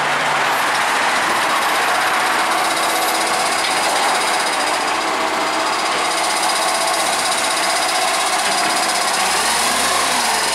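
Iveco Acco garbage truck's diesel engine running steadily as the truck moves slowly along the kerb, with a low hum joining in near the end.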